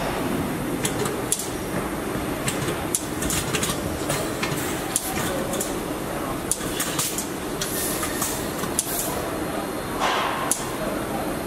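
Car assembly line din: a steady background rumble of machinery with scattered sharp metallic clicks and knocks, a brief hiss about eight seconds in and a louder burst of noise about ten seconds in.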